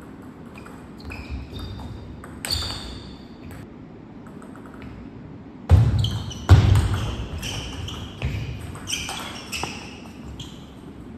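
Table tennis rally: the plastic ball clicks off the rackets and the table in separate sharp knocks, some with a short ring. There are two louder, heavier thuds about six seconds in.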